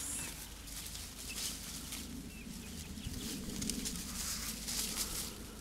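Chickens and hogs in a shared paddock making faint, low animal sounds, with light rustling in dry leaves.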